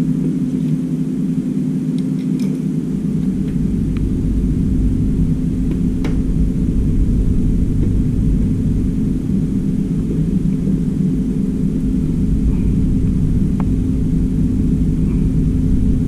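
Steady low rumble with a constant hum underneath, and a few faint clicks from a plastic part being handled.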